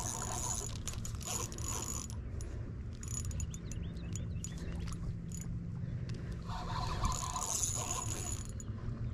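Spinning reel working against a hooked smallmouth buffalo: the reel whirs and ratchets in two stretches, one at the start and one from about six and a half seconds in, with a few sharp clicks between them.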